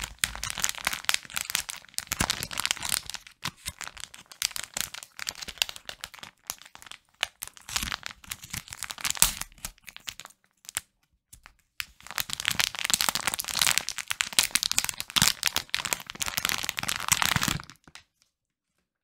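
Close, crisp crinkling and crackling of packaging being opened and handled by hand, in bursts with short pauses and a longer break about halfway. It stops shortly before the end.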